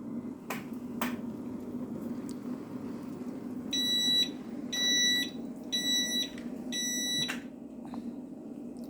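Freezer door-open alarm beeping four times, about once a second, each a short high electronic tone. There are two sharp clicks just before them and a steady low hum throughout.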